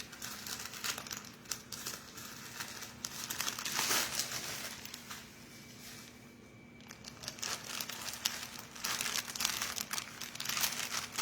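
Packaging crinkling and rustling as a package is opened and its contents unwrapped, loudest about four seconds in, with a short lull around six seconds.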